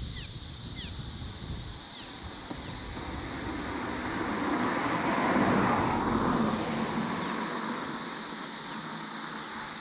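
A vehicle passing over the bridge, swelling up and fading away over about four seconds. Under it runs the steady high drone of a periodical cicada chorus.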